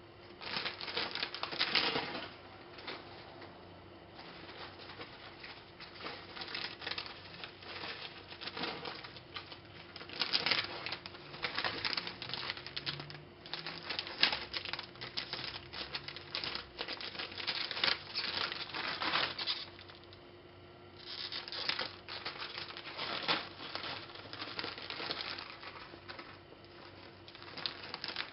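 Foil-lined chip bag being crinkled and rustled by hand in long bursts of dense crackling, with short lulls between them.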